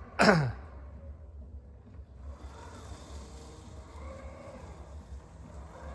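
Terramow robotic lawn mower starting its blade disc: a short, loud downward sweep just after the start, then from about two seconds in a steady high whine as the blade motor runs.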